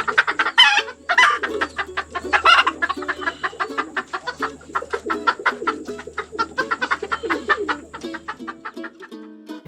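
Chickens clucking: a dense run of quick clucks, with a few louder, higher calls in the first few seconds.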